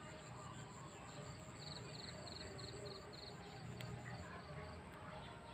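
Insects chirping faintly: runs of short, evenly spaced chirps at about three a second, stopping and starting, over a steady high-pitched trill.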